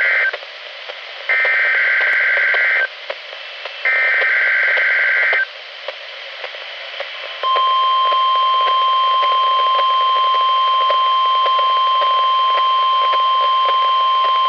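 NOAA Weather Radio SAME alert header played through a weather radio's speaker: the tail of one warbling digital data burst, then two more bursts of about a second and a half each, separated by radio hiss. About seven and a half seconds in, a steady 1050 Hz alert tone starts and holds.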